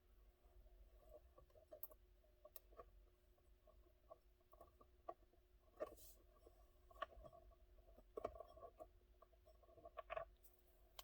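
Faint, scattered clicks and light taps of hands working loose plastic steering-column trim and screws, over a faint steady hum.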